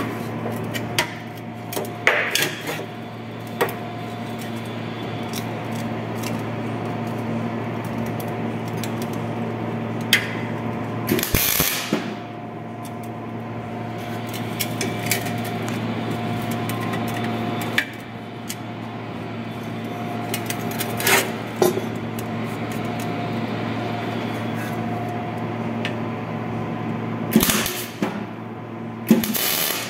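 MIG welder tack-welding the segments of a carbon-steel 90° duct elbow: a few short bursts of arc crackle, the longest about 11 seconds in and two more near the end. Light metal clinks fall between them, over a steady hum.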